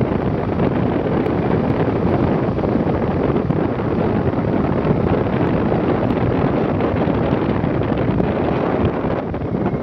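Wind buffeting the microphone of a camera on a moving motorcycle: a dense, steady rumble with no clear engine note standing out.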